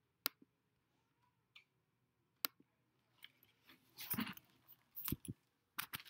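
Two sharp clicks in near quiet, then a few seconds of soft rustling and handling noises close to the microphone, with a dull low thump about five seconds in.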